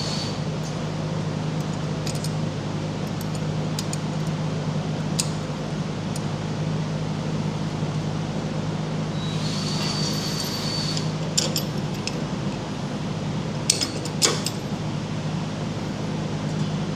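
Steel clamp hardware clinking a few times as a C clamp and its bolts are fitted onto a tractor's ROPS post, over a steady background hum. The loudest two clicks come close together late on.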